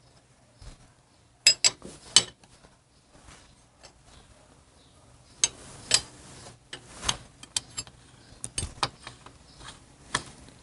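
Irregular metal clicks and clinks of a wrench turning the threaded cam-bearing installation tool as it is backed out of a Harley-Davidson Evolution engine's cam chest, the new cam bearing having been pressed in.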